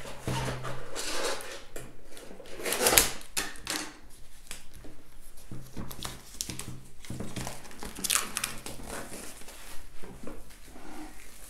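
Board game boxes and their packaging being handled: irregular rustling and crinkling with light knocks, loudest about three seconds in and again about eight seconds in.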